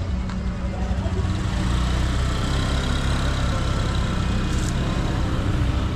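A motor vehicle's engine running close by: a steady low hum that grows louder about a second in, over general street traffic noise.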